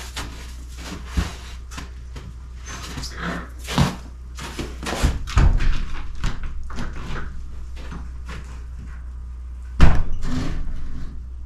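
A door being handled and set into a doorway frame to test its fit: scattered knocks and scuffs, then one loud bang near the end.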